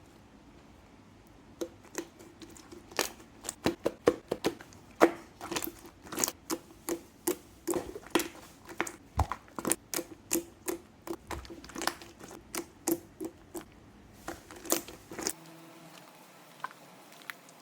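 Clay slime mixed with water beads being squeezed and poked, giving a run of sharp wet pops and clicks, about two or three a second, that begins about a second and a half in and stops about 15 seconds in.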